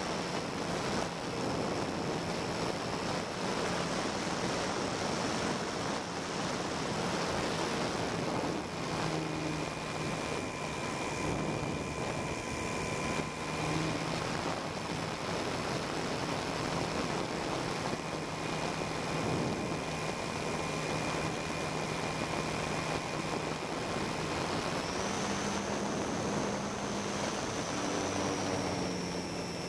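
Steady whine of a radio-controlled aircraft's motor and propeller over air rushing past the onboard microphone. Near the end the pitch steps up for a few seconds, then drops back.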